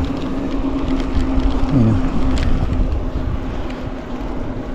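Road and wind noise on the move: a low rumbling noise with a steady hum throughout and one short falling pitch about two seconds in.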